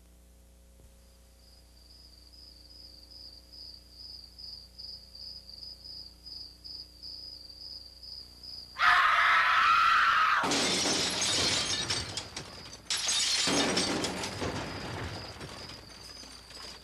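A high chirp pulsing evenly, like crickets at night, then a sudden loud shattering crash about nine seconds in, followed by more crashing and breaking noise that rises again a few seconds later and slowly dies away.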